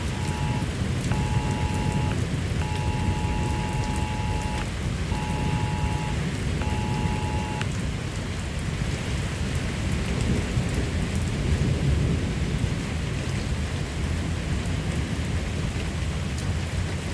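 A two-tone emergency alert tone beeps in a broken pattern of one- and two-second tones for the first half, signalling a newly issued tornado warning, over steady heavy rain with thunder rumbling.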